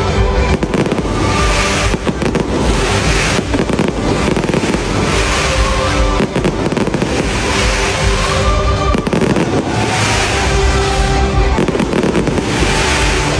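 Fireworks show: fireworks bursting and crackling again and again over loud show music with held tones.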